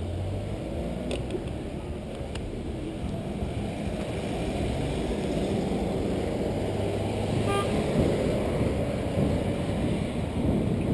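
Car traffic on a city street heard from a moving bicycle, with steady wind and road rumble on the microphone. A short, high toot sounds once, about seven and a half seconds in.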